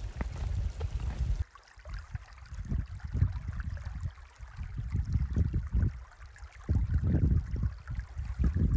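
Shallow creek running over rocks, a faint steady rush of water, with irregular gusts of wind buffeting the microphone as low rumbles.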